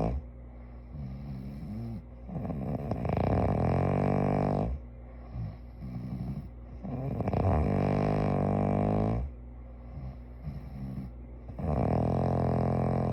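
A sleeping person snoring: three long snores about four to five seconds apart, each lasting around two seconds, with quieter breaths in between.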